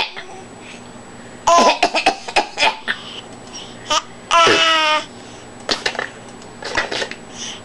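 Baby babbling: two drawn-out, high-pitched vocal sounds, one about a second and a half in and a longer one about four and a half seconds in, with short clicks and small mouth sounds between them.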